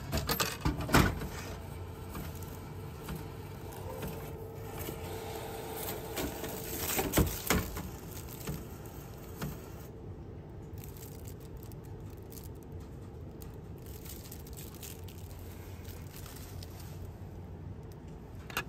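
Vending machine dispensing an aluminium can: sharp clunks about a second in, a steady hum from the machine a few seconds later, and another clatter about seven seconds in. A steady low background follows.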